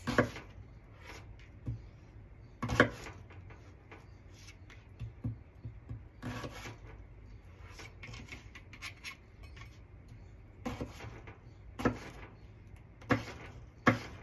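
Chef's knife dicing cucumber on a cutting board: scattered knocks of the blade striking the board, several seconds apart at first and closer together near the end, with faint rubbing in between.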